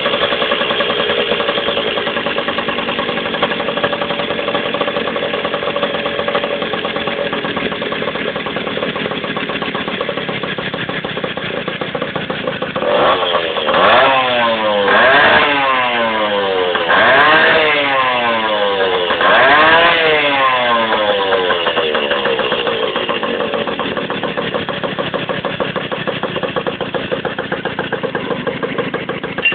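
Yamaha two-stroke motorcycle engine idling while its carburettor air mixture screw is adjusted. About halfway through it is revved in four or five quick throttle blips, each rising and falling, then settles back to a steady idle.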